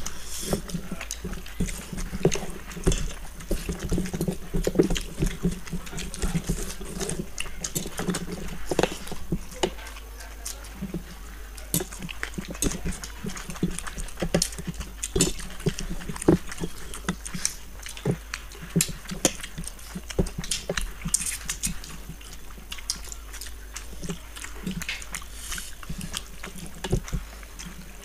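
Close-up eating sounds of people eating fish head curry and rice with their hands: wet chewing, lip-smacking and sucking on fish heads, with fingers squelching rice and curry on steel plates. The sounds come as many short, irregular clicks and smacks.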